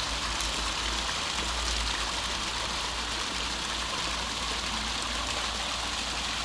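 Garden fountain jets spouting up from pipes and splashing into a pool, a steady rushing and hissing water noise over a low rumble.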